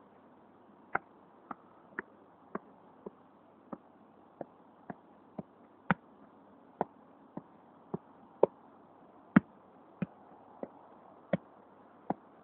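A football being juggled, kept up with the boot and knee: a run of about nineteen sharp taps of foot on ball at roughly two a second, some much louder than others.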